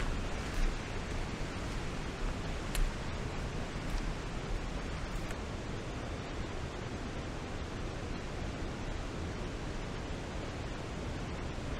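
Steady, even rushing noise outdoors, with a few faint ticks in the first three seconds.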